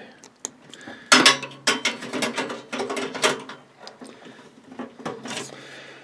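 Clicking and scraping of metal as insulated female spade connectors are worked onto the terminals of a microwave oven's lamp socket. A quick run of clicks starts about a second in and lasts a couple of seconds, with a few more clicks near the end.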